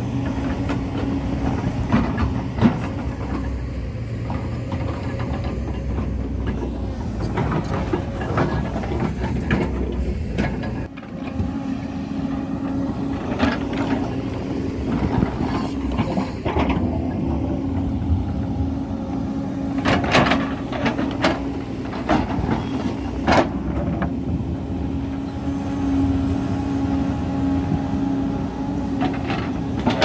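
JCB excavator's diesel engine running steadily under load with a constant hum, while the bucket scrapes and shoves soil and rock over the slope edge. Stones knock and clatter as they tumble, most often about twenty seconds in.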